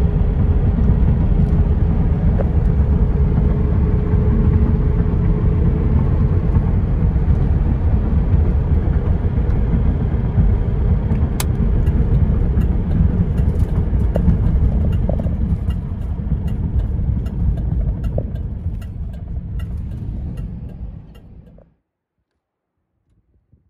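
Inside the cabin of a 2001 Chevrolet Camaro Z28 SS on the move: its 5.7-litre LS1 V8 runs steadily at low revs, under a strong low rumble from the road and tyres. The sound cuts off suddenly near the end.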